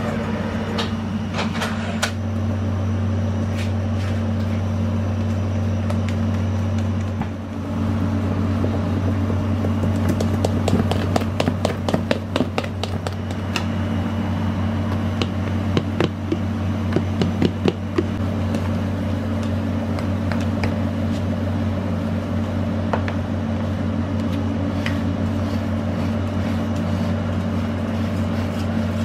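Steady low mechanical hum of kitchen equipment, such as a ventilation fan or gas oven. Over it, from about ten seconds in, come many light clicks and taps as batter is worked into an aluminium chiffon-cake tube pan with hand and spatula, thinning out later.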